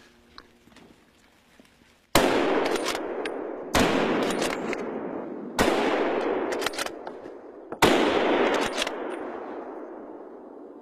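Four rifle shots fired close by, about two seconds apart, each followed by a long echo that dies away through the forest.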